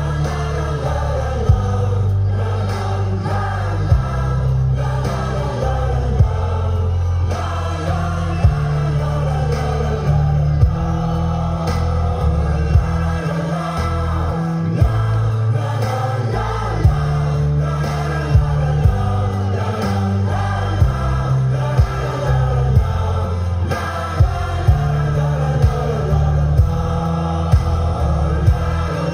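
Music with a choir singing over a heavy bass line, with a sharp hit about every two seconds that comes more often near the end.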